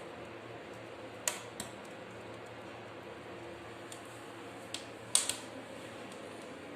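A few sharp, short clicks or pops, about five in all with the loudest about five seconds in, over a steady faint background hum.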